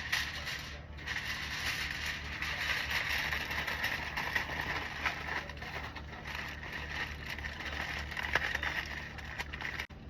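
Aluminum foil crinkling as it is handled and shaped, a steady rustle dotted with small sharp clicks.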